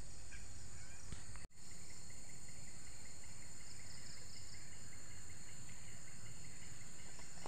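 Insects trilling steadily in a high, continuous chorus, with a second insect adding a fast run of short chirps, about five a second, in the first half. The sound cuts out for an instant about a second and a half in.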